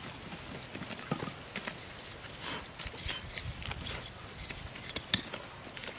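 Scattered knocks and taps of a machete cutting and striking a short green bamboo tube, with one sharper knock about five seconds in.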